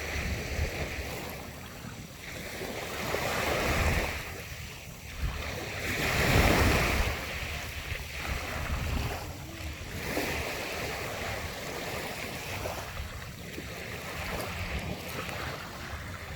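Sea waves washing onto the shore, each surge swelling and ebbing every few seconds, the biggest about six seconds in. Wind buffets the microphone throughout.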